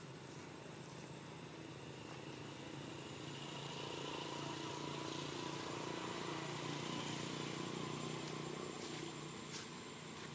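A distant motor engine running, swelling in the middle and easing off near the end, over a steady outdoor background with a thin, high-pitched steady tone.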